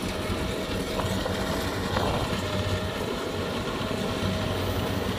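Kubota DC-60 combine harvester's diesel engine and threshing machinery running steadily while cutting rice: a low drone with a thin whine above it, and a short burst of noise about two seconds in.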